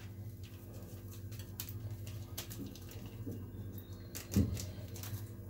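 Faint rustling and light tapping of a paper sachet as baking powder is shaken into a mixing bowl, over a steady low hum. There is one brief louder thump about four seconds in.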